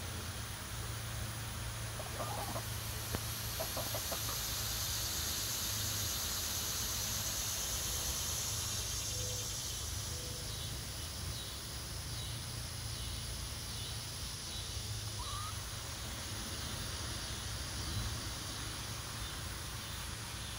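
Young chickens foraging in grass, giving a few short, soft calls scattered through, one of them a brief rising call past the middle, over a steady high hiss.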